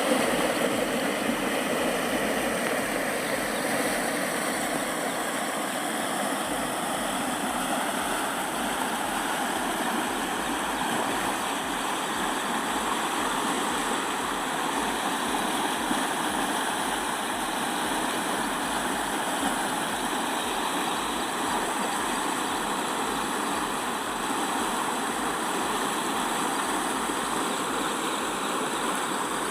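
Steady rush of river water pouring through a barrage's headworks, an even roar of noise without a break.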